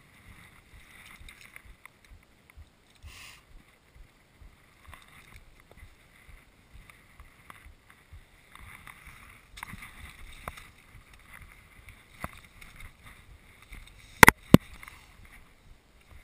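Mountain bike rattling down a rough, stony track: tyres crunching over loose rock and the bike clattering with many small knocks. About two seconds before the end come two much louder sharp knocks in quick succession.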